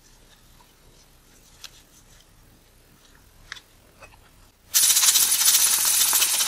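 Hand-squeezed rubber bulb air blower blowing air onto a camera lens mount to clear out dust. A few faint light clicks come first, then a loud, even hiss begins about three-quarters of the way in and stops suddenly.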